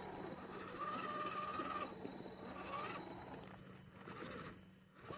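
Small electric motor and gears of an RC scale crawler whining under throttle, with a thin high electronic whine, cutting off abruptly about three and a half seconds in.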